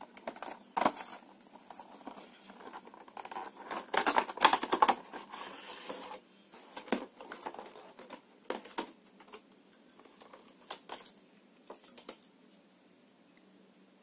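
Plastic wrapping and card packaging of a 120 mm PC case fan being handled and opened: irregular crinkling rustles and sharp clicks, loudest about four to five seconds in, dying away after about twelve seconds.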